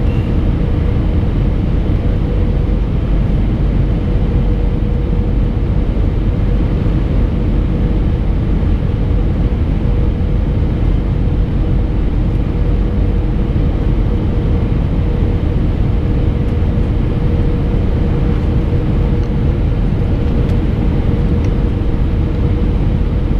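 Steady cabin rumble inside an Airbus A319, the noise of its engines and rushing air, with a steady mid-pitched hum laid over it.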